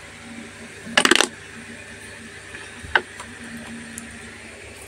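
Metal kitchen utensils clinking: a short clatter of several clinks about a second in, then a single sharp clink about three seconds in.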